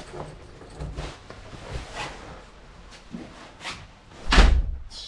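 A door shutting with a heavy thud about four and a half seconds in, after a few lighter knocks and bumps.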